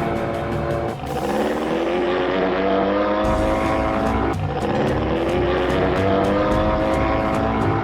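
Vehicle engine sound effect accelerating through the gears: the pitch climbs steadily, drops at a gear change about one second in and again about four and a half seconds in, then climbs again.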